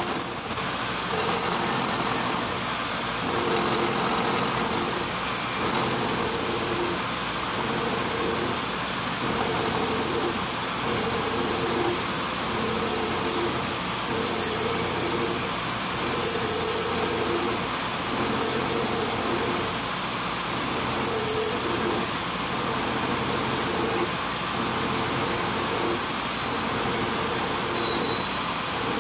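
Turret milling machine running, its cutter milling the spiral groove of a metal traverse shaft under hand feed, since the automatic feed is broken. A steady motor-and-spindle hum, with the cutting noise swelling and fading and a hiss that comes and goes every second or two.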